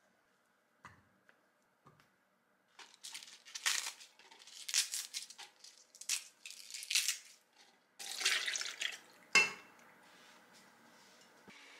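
Kale leaves and a peeled kiwi being dropped into a glass blender jar, with a run of rustling, crinkling bursts from the leaves, then almond milk poured in from a carton with a splashing pour and a sharp knock just after.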